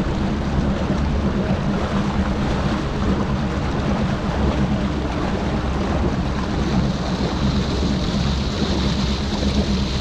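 Bass boat's outboard motor running steadily at low speed, a low hum under the rush of water and wind on the microphone. A faint high whine comes in about six seconds in.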